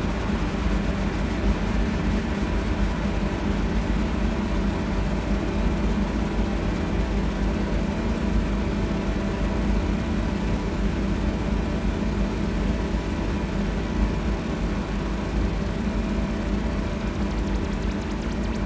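Synthesizer noise drone played through effects pedals: a dense, unchanging low rumble with many held tones layered over hiss.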